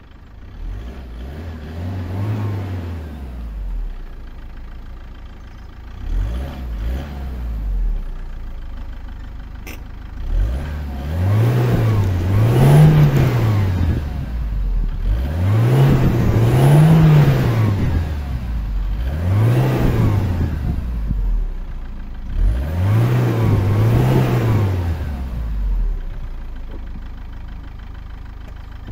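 Peugeot 206's 2.0 HDi 90 (PSA DW10) four-cylinder turbodiesel revved while standing, about six times, each rev rising and falling in pitch, some with a double peak. Heard at the exhaust, it settles back to a steady idle near the end.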